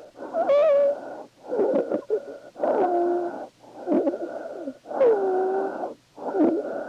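Recorded lung sounds heard through a stethoscope: wheezes, musical whistling tones that glide in pitch, sometimes two at once, running through each of about six breath phases with short pauses between them. Wheezes are the sign of narrowed airways.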